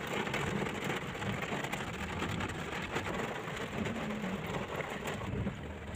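Rain falling on a car's windows and body, heard from inside the moving car over steady engine and road noise.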